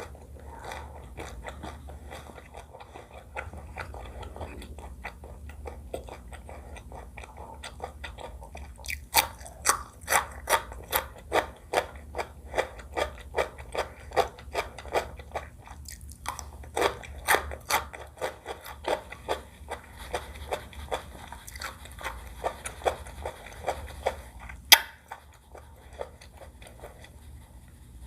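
Close-miked chewing of food with wet mouth clicks. The chewing is soft at first, then settles into a steady rhythm of about two to three chews a second with a short pause midway, and one sharp louder click near the end.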